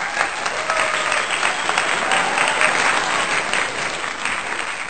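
A crowd applauding: dense, steady clapping with a few voices calling out over it.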